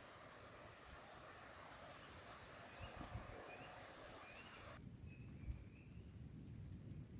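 Faint outdoor ambience of insects trilling in repeated high-pitched bursts about a second long, with a few faint bird chirps. The soft background hiss cuts off suddenly about five seconds in.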